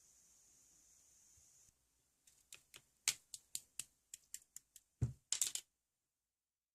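A run of about a dozen light, sharp clicks or taps over three seconds, ending with a louder thump and a quick cluster of taps.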